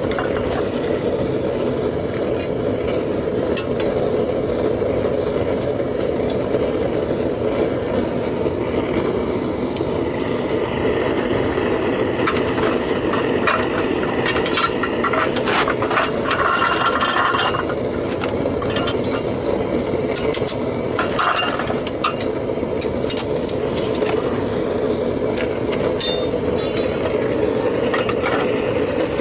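Propane burner of a homemade metal-melting furnace running with a steady roar, with scattered metallic clinks and scrapes of tools against the crucible, busiest in the middle of the stretch.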